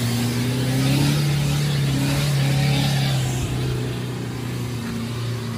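Off-road 4x4's engine running under throttle, its pitch rising a little about a second in and easing off near the end.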